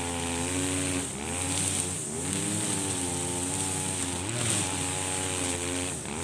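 Husqvarna 42cc two-stroke brushcutter engine at full throttle, its pitch sagging briefly and climbing back about four times as the 2.2 mm nylon line cuts through thick, tall grass.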